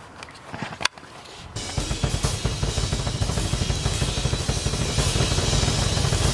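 A sharp click about a second in, then loud music with a drum kit playing a steady beat starting about a second and a half in.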